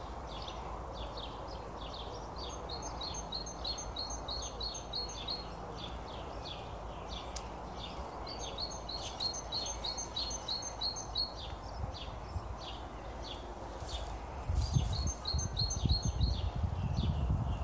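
A small songbird singing a phrase of quick, high, repeated chirps three times, several seconds apart, over a steady background hum. A low rumbling noise comes in near the end.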